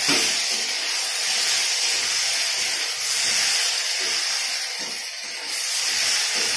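Potato, carrot and eggplant pieces frying in oil in a kadai over a high gas flame, giving a steady sizzle as they are stirred with a metal spatula.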